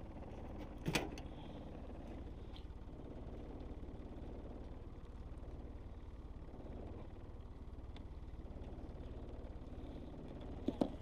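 Steady low rumble, with a sharp knock about a second in and two clicks near the end as hands handle the bait tub and hook in a small boat.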